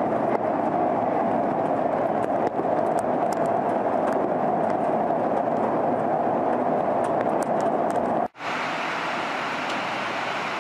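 Steady noise of a storm's wind and heavy rain. About eight seconds in it drops out briefly and is followed by a quieter, hissier stretch of storm noise.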